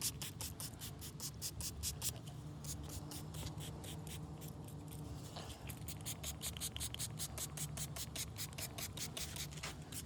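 Hand wet-sanding a plastic car headlight lens with 2,000-grit sandpaper: quick, even back-and-forth strokes at about four or five a second, easing off for a couple of seconds in the middle before picking up again.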